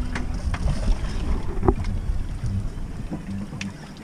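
Wind buffeting the microphone on an open boat, a low rumble that eases off near the end, with a few light clicks.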